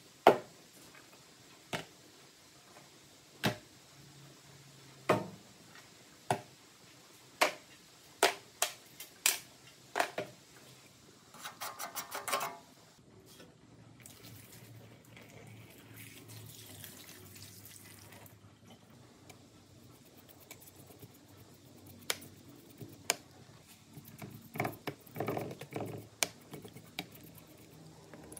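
Rusty cast-iron vise parts set one by one into a plastic tray, each landing with a sharp clunk, about ten in the first ten seconds, followed by a brief rattle of small parts. Liquid is then poured from a metal can over the parts, a soft steady splashing. More metal clinks and clatter come near the end.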